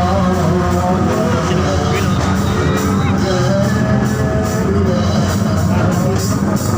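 Loud music with a wavering melody over a steady, heavy bass.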